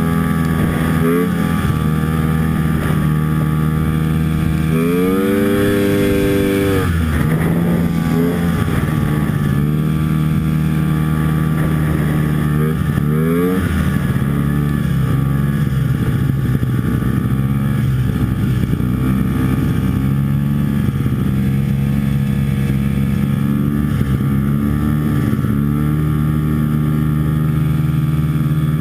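Antique Ski-Doo snowmobile's two-stroke engine running under way, heard from the rider's seat. Its pitch climbs as it revs up about five seconds in, drops back a couple of seconds later, and rises again around the middle.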